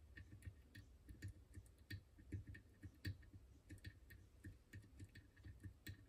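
Faint, irregular light metallic clicks, several a second, from the pins of a French Izis lock as they are pushed with wire picks. The pins take turns binding, and each touch gives a small click.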